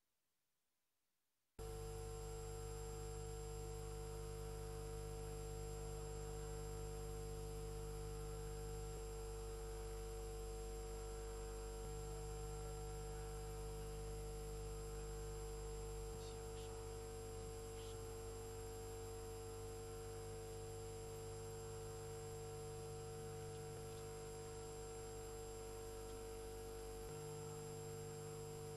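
Steady electrical mains hum and buzz, a stack of unchanging tones with a low drone, switching on abruptly about a second and a half in after near silence.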